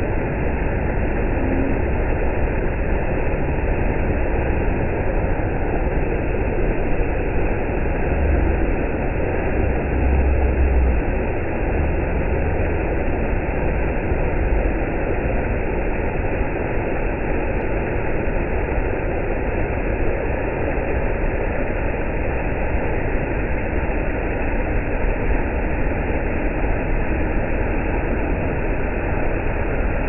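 Waterfall water rushing steadily over rock into a plunge pool, a constant deep rushing noise with no breaks.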